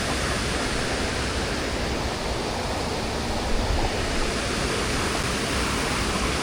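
Steady rushing of a waterfall, water pouring over rock tiers into a pool.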